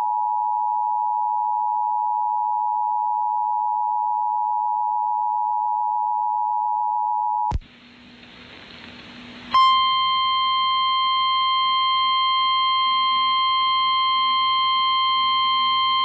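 EAS two-tone attention signal: a loud steady pair of pitches just under 1 kHz that cuts off abruptly about seven and a half seconds in. About two seconds of faint radio hiss follow, then a steady single-pitch NOAA Weather Radio 1050 Hz warning alarm tone starts and holds. Both tones announce a severe thunderstorm warning.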